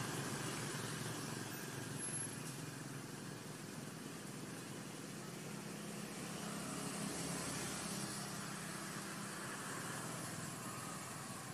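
Steady outdoor background noise: a low, engine-like hum under an even hiss, with no distinct events.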